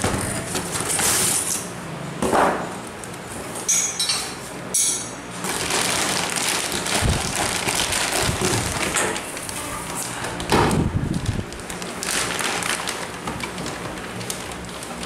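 Plastic wrapping crinkling and a cardboard box rustling as a small engine is unpacked by hand: irregular crackling, with a few louder bumps.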